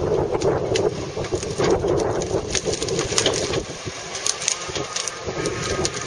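Fiberpac 370B brash baler at work: its carrier machine runs steadily while brash is fed and compressed, with many sharp cracks and snaps of branches breaking.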